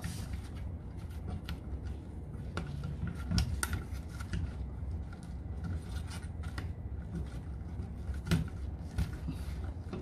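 Insulated wires being pushed and folded into a metal junction box by gloved hands: rubbing and scraping of wire against the metal box, with scattered sharp clicks, over a steady low hum.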